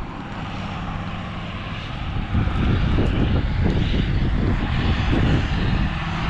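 Wind buffeting the microphone, heavier from about two seconds in, over the steady engine of farm machinery working in a nearby field.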